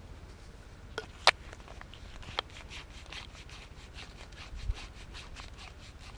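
Barbieri Visionair mini hand pump inflating a bicycle tyre: sharp clicks from the pump head on the valve about a second in, then a quick, even run of pumping strokes, about four a second, each with a short rush of air.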